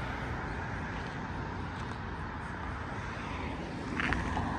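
Steady outdoor background noise with a low rumble of distant road traffic. A short high-pitched sound comes about four seconds in.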